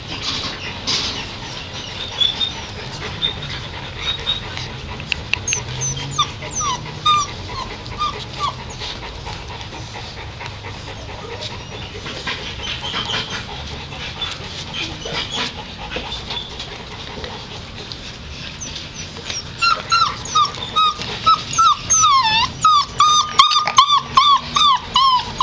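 American Pit Bull Terrier puppies whimpering in short, high-pitched whines, scattered at first, then coming thick and louder over the last few seconds.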